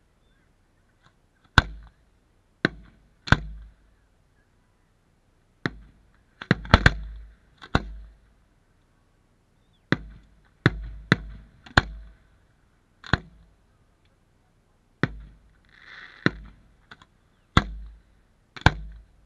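Aerial fireworks shells bursting one after another, about fifteen sharp booms at uneven spacing, some in quick clusters, each trailing off in a short echo. A brief hiss sounds between bursts near the end.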